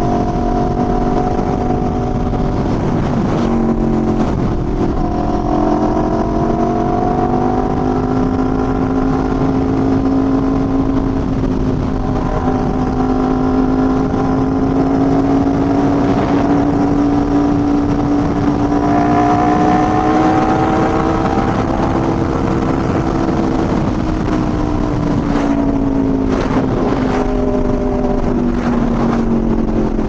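Motorcycle with an 1100 cc engine and an SC-Project exhaust, heard from close to the exhaust, running at a steady cruise. Its pitch drifts slowly up and then back down, and a few brief clicks come near the end.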